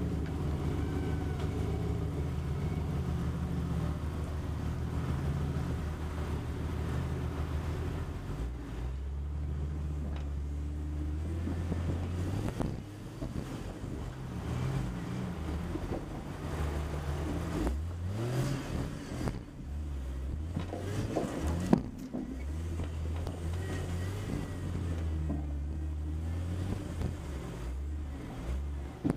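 Jeep Cherokee engine running at crawling speed on a rocky trail, its pitch rising and falling as the throttle is worked. There is a single sharp knock about two-thirds of the way through.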